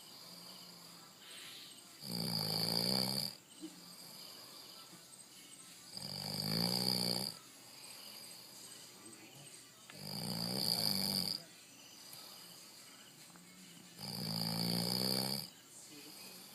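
A person snoring: four long snores, each over a second, coming about once every four seconds, much quieter between them.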